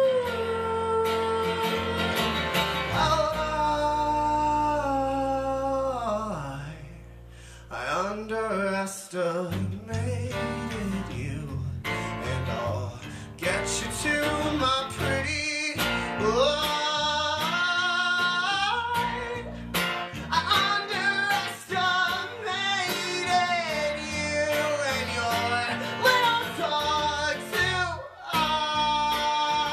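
Steel-string acoustic guitar and electric bass guitar playing a folk song, with a male voice singing a wordless, sliding melody over them. The music briefly thins and slides down in pitch about seven seconds in.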